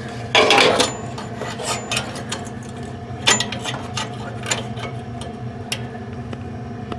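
Handling noise of a replacement furnace hot-surface ignitor being fitted against its metal mounting bracket: a short rubbing scrape about half a second in, then light clicks and taps, with a sharper click about three seconds in.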